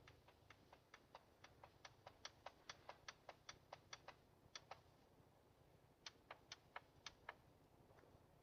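Faint, sharp clicks at about four to five a second for roughly four seconds, then a pause and a second short run of about half a dozen clicks.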